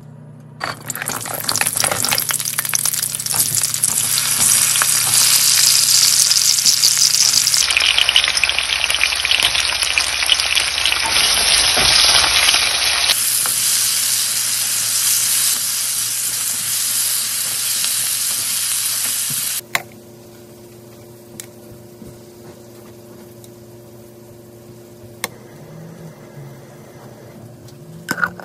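Dried red chillies, tomatoes, shallots and garlic sizzling as they fry in hot oil in a nonstick pan, stirred with a wooden spatula. The sizzle starts about a second in, changes character abruptly twice, and stops suddenly about two-thirds of the way through, leaving a quiet stretch with a few light clicks.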